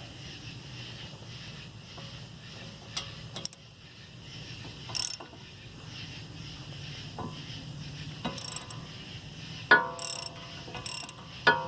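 Hand ratchet with a 12 mm socket, set to tighten, clicking as it runs in the bolts that draw a 2007 VW Jetta's front wheel bearing hub into place. Scattered clicks at first, then a run of louder, sharper metallic clicks with a short ring near the end.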